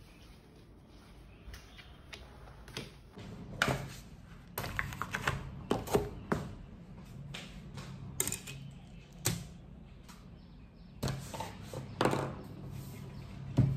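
Plastic takeaway containers, chopsticks and placemats being set down and handled on a wooden table: a string of irregular clicks, knocks and light rattles. A low steady hum comes in about three seconds in.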